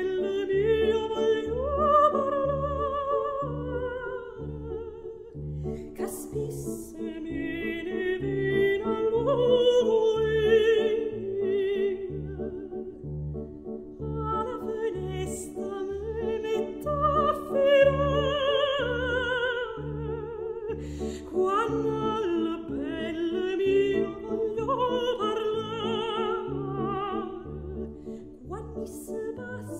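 Background music: an opera-style solo voice singing with wide vibrato over an accompaniment with a steady, evenly repeating low pulse.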